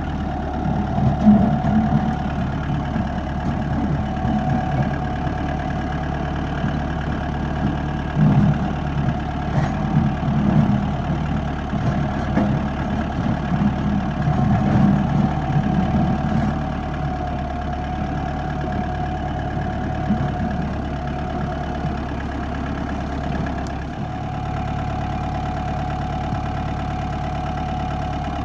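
Tractor engine running steadily, with louder, rougher surges in the first half as it works, then settling to an even run.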